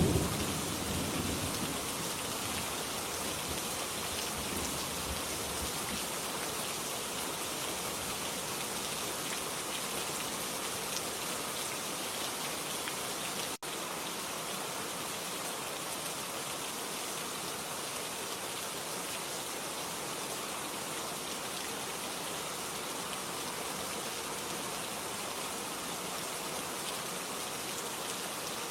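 Steady rain ambience, an even hiss of rainfall, with the tail of a thunder rumble fading out in the first second or two. About halfway through the rain drops out for an instant.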